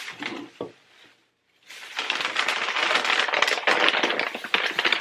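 Rummaging through a pile of purchased items: after a short pause, a dense clatter of clicks and rattles starts about two seconds in as the objects are handled and shifted.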